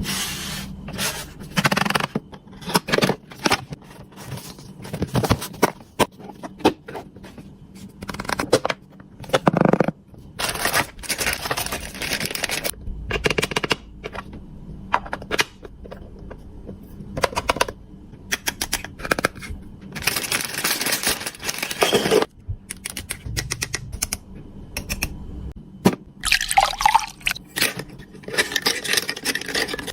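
Close-up handling of small toy kitchen pieces: many sharp clicks, taps and scrapes, with a few longer stretches of hiss like running or pouring water.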